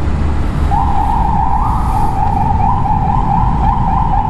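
A vehicle's siren (a wang-wang) starts a little under a second in, a quick warbling wail around one high pitch that pulses about twice a second, over the low rumble of engines in traffic.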